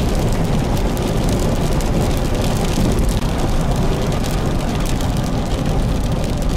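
Steady road and engine rumble inside a car driving on a wet road, with rain striking the vehicle in many small ticks.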